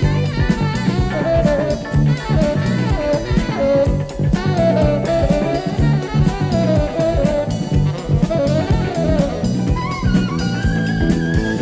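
Live jazz band playing: a drum kit and bass keep a steady groove under horns, with a wavering saxophone lead melody; a higher lead line comes in near the end.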